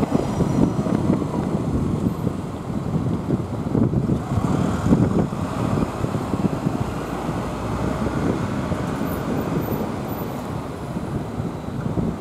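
City street traffic noise at an intersection: a steady, rumbling wash of passing cars and trucks.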